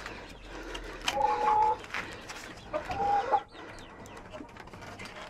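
Chickens calling inside the coop: two drawn-out calls, about a second in and about three seconds in, with a few light knocks from the wooden coop door being handled.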